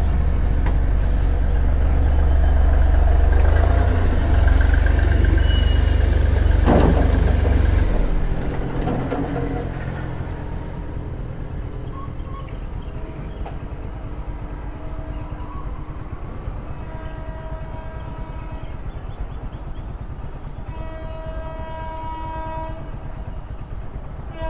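A low rumble for the first eight seconds, then horns tooting off and on, more often near the end, while traffic waits at a railway level crossing for an approaching train.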